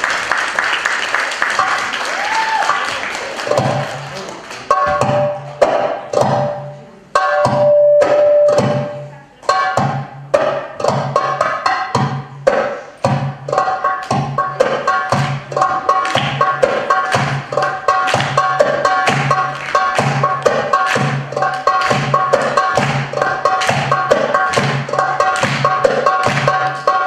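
Goblet drum (darbuka) played solo by hand: after a few seconds of fading crowd noise, scattered deep doum and sharp tek strokes with short pauses, then a steady, fast, even rhythm of low and high strokes.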